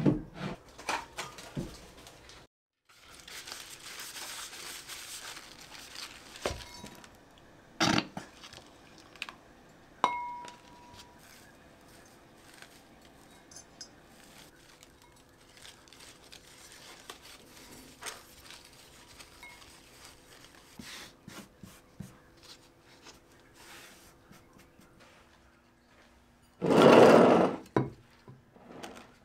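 Handling noise while repotting a houseplant: scattered knocks and clinks of a ceramic pot on a countertop, one clink ringing briefly, with soil rustling. A loud burst of rustling noise lasts about a second and a half near the end.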